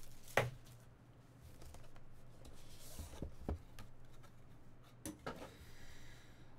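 Quiet handling of trading cards and packaging: a few light knocks and rustles, over a steady low hum.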